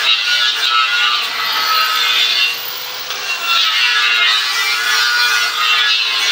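Compressed-air spray-painting rig hissing steadily, with a steady hum underneath; the hiss eases briefly about three seconds in.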